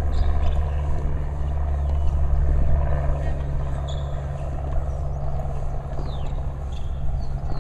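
Steady low rumble of nearby road traffic, with a few short, high, falling bird chirps.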